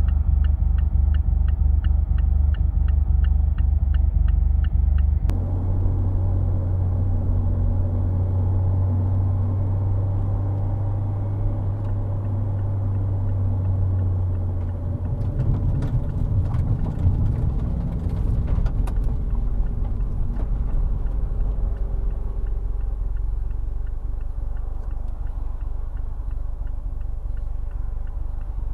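2019 Mazda MX-5 Miata (ND2) engine idling with a steady low drone, uneven in places: the owner's rough idle and misfire complaint. A fast regular ticking for the first five seconds stops abruptly.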